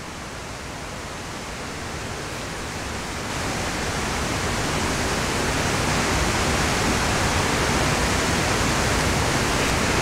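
Steady rushing of a mountain stream flowing over rocks, swelling over the first few seconds and then holding even.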